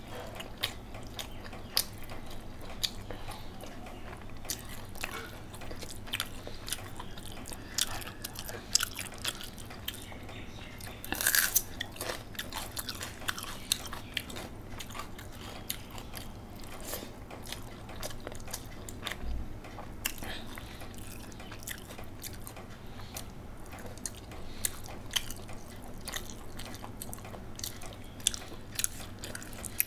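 Close-miked eating sounds from a person eating rice and curry by hand: chewing with many short wet clicks and smacks, and a louder cluster of bite sounds about eleven seconds in.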